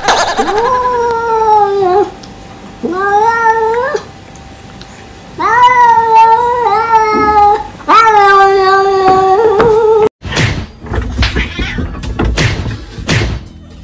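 A cat yowling: several long, wavering calls that bend up and down in pitch. About ten seconds in they stop abruptly, and a quieter run of short knocks and clicks follows.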